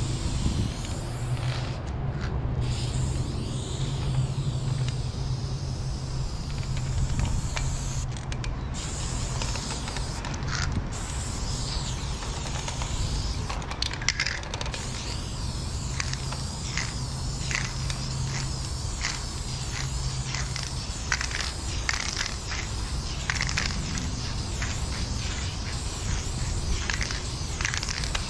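Aerosol spray paint can hissing in long, steady spurts as black paint is sprayed onto a concrete wall, with repeated short clicks through the second half.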